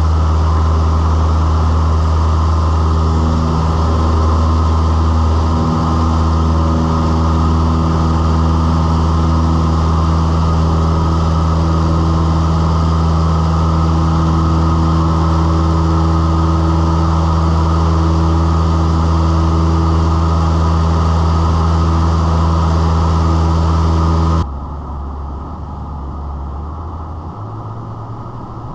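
Cessna 172's piston engine and propeller at high power, heard inside the cabin as a loud, steady droning hum during the takeoff and climb-out. About 24 seconds in the sound drops suddenly to a quieter, duller drone.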